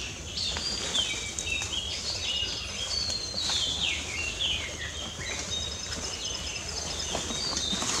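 Noisy chorus of many wild birds calling at once: dense, overlapping short high calls that slide downward in pitch, with a quick run of rapid repeated high notes partway through.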